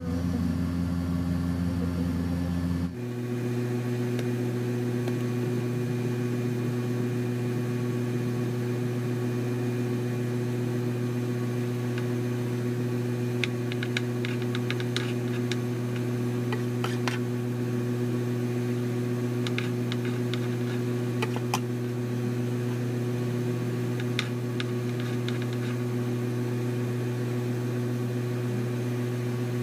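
A steady machine hum made of a few even tones, shifting to a lower, fuller hum about three seconds in, with scattered light clicks and taps in the second half.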